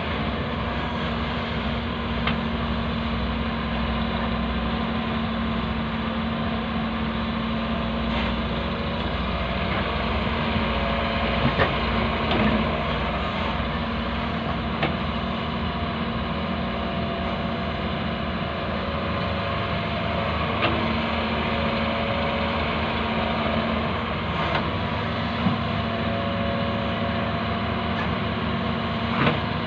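Hyundai wheeled excavator's diesel engine running steadily under load while it digs soil from a trench, with a few short sharp clanks scattered through.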